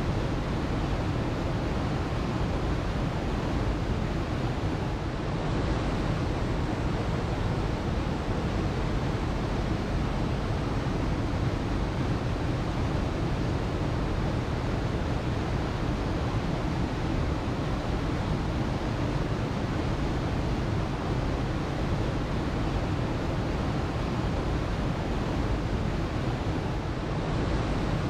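Waterfall: water falling and rushing in a steady, deep roar of noise that does not change.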